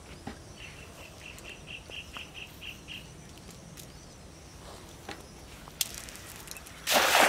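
A bird calls a quick run of about ten short, even notes. Near the end a thrown cast net lands on the water with a short, loud splash.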